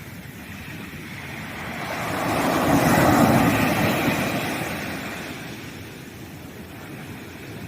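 A sea wave breaking and washing up the sand: the rush swells about two seconds in, peaks near three seconds, then fades back to a steady surf hiss.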